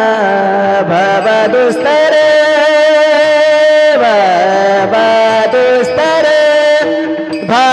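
Varkari kirtan singing: a voice draws out long sung notes with musical accompaniment. The notes bend and waver, one is held for a couple of seconds in the middle, and a downward glide follows about four seconds in.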